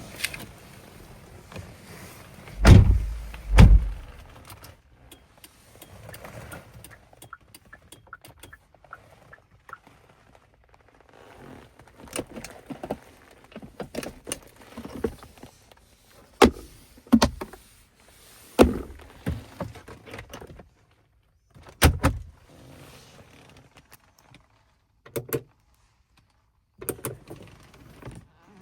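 Hyundai Sonata doors and interior controls being handled with the engine off. Two heavy door thuds come about a second apart near the start, then a long run of separate clicks and knocks from switches, handles and trim.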